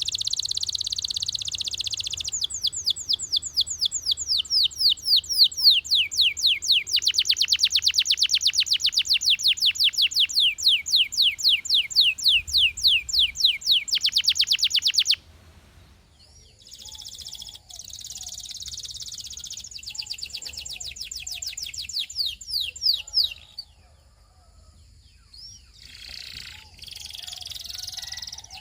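Russian canary singing a long song of rapid trills: fast runs of repeated notes, each sweeping down in pitch, in phrase after phrase. It breaks off abruptly about halfway through, then goes on more softly with further trilled phrases.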